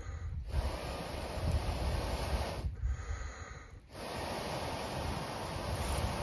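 A person breathing heavily close to the microphone: long, rough breaths with the air buffeting the mic, broken by a short pause about every three and a half seconds.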